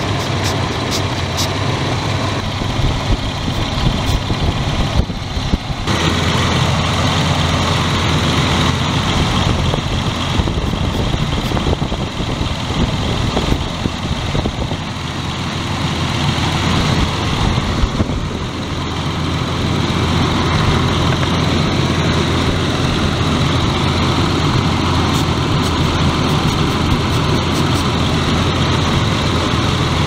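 1999 Ford Explorer 4.0L SOHC V6 idling steadily with its rough idle, while an aerosol spray is hissed around the intake hoses to find the vacuum leak behind it.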